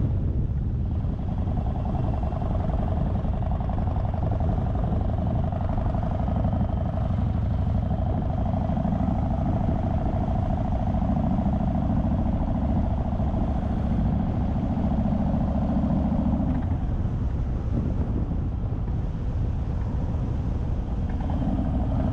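Yamaha Raider's V-twin engine running steadily at a slow cruise, heard from the saddle with road noise. The engine note is fuller for most of the stretch and eases off about three-quarters of the way through.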